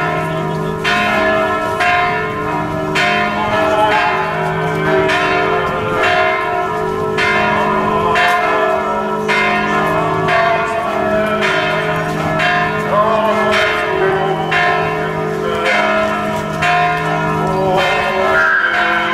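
Several large church bells ringing together for a funeral, overlapping strikes coming about one to two a second with long humming tones carrying between them.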